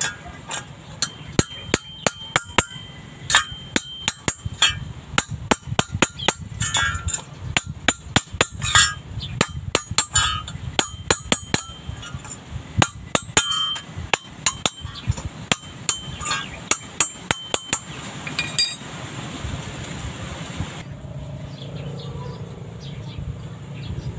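Small hammer tapping on a stainless steel exhaust whistle tip: a long run of sharp metallic taps, several with a short ring, coming two or three a second and stopping about three-quarters of the way through.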